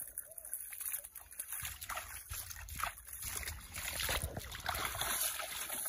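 Hands swishing and splashing in shallow muddy water, a run of small irregular splashes as the mud is washed off them.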